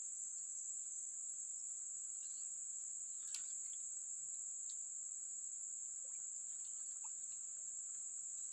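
Steady, shrill insect drone that holds one high pitch without a break, with a few faint ticks and one sharper snap about three seconds in.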